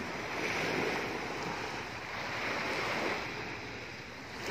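Small waves washing onto a pebbly shore, swelling twice in a steady surf noise.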